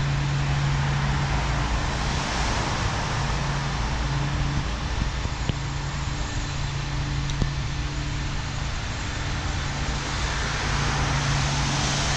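Steady traffic noise carried into a tiled pedestrian underpass, with a low steady hum that breaks off now and then.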